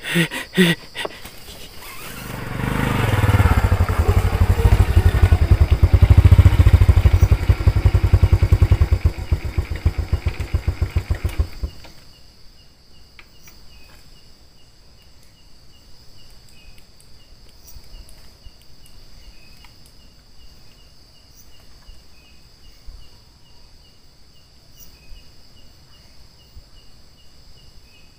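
A small motorcycle engine running, growing louder over a few seconds, then its beat slows and it cuts off abruptly about twelve seconds in. Afterwards only a steady high chirring of insects remains.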